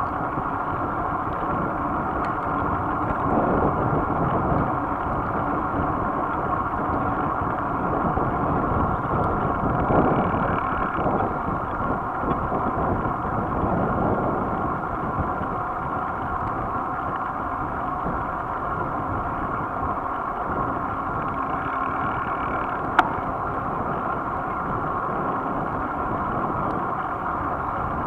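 Steady wind buffeting on the microphone of a camera riding on a moving bicycle, mixed with tyre and road rumble, swelling now and then. One sharp click about 23 seconds in.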